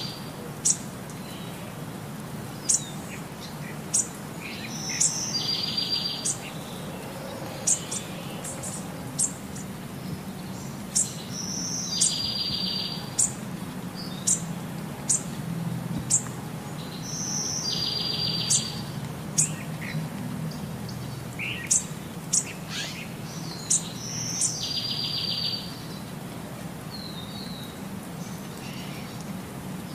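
Birds chirping outdoors: short, sharp high chirps scattered throughout, and a buzzy trilled phrase of about a second that comes back about every six seconds.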